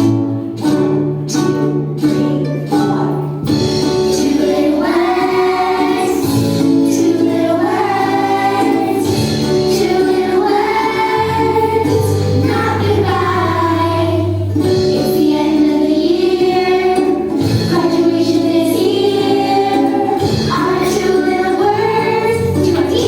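A song: a plucked string instrument plays a short intro, then a group of voices starts singing a melody over it about three and a half seconds in.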